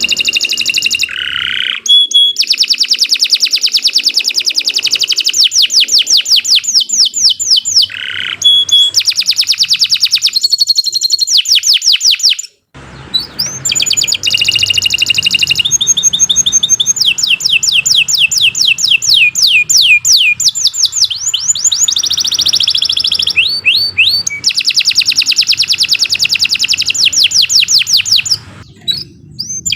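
Domestic canary singing a long, continuous song of fast trills and rapid repeated down-sweeping notes, with a brief break about twelve seconds in.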